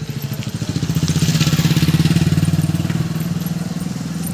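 A motor vehicle's engine running close by with a fast, even pulse. It grows louder about a second in and eases off toward the end.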